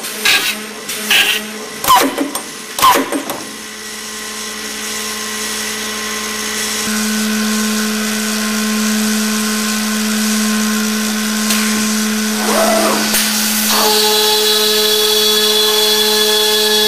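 Accu-Systems OHV CNC boring and routing machine running. A few sharp mechanical clacks come in the first few seconds. Then a steady motor hum builds and grows louder, and a higher steady tone joins about two-thirds of the way through as another spindle runs.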